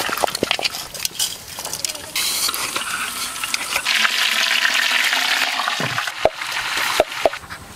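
Food sizzling, a steady hiss from about two seconds in that lasts several seconds, followed by a few sharp knocks near the end.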